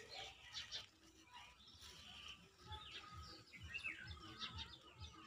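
Faint birds chirping, a stream of short chirps.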